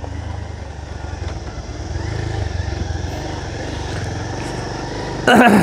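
Motorcycle engine running steadily while riding, with a brief loud pitched sound near the end.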